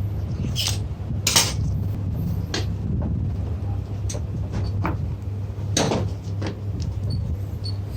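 Irregular metallic clinks and knocks of metal parts and tools being handled, the loudest about a second and a half in and again near six seconds, over a steady low hum.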